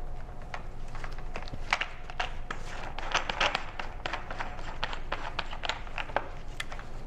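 Irregular light clicks and knocks of tools being handled while changing over from grinding to polishing, densest in the middle, over a faint steady hum.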